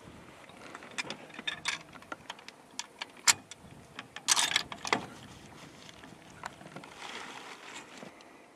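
Clicks and knocks of a scoped bolt-action rifle being handled and readied on a shooting bench. There is a sharp click about three seconds in and a short rattling clatter about a second later.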